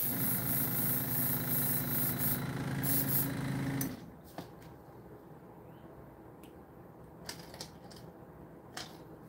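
An airbrush compressor runs with a steady motor hum while air and cleaning solution of water and 70% alcohol hiss out of the airbrush in on-off spurts, flushing it out. Both stop about four seconds in, followed by a few light clicks.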